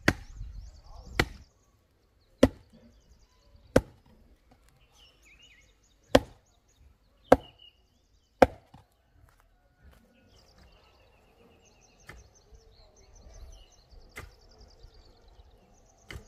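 Heavy log pounding a wooden fence post into the ground, a dull wood-on-wood knock with each blow. There are seven loud blows roughly a second apart, then a few fainter, more widely spaced knocks near the end.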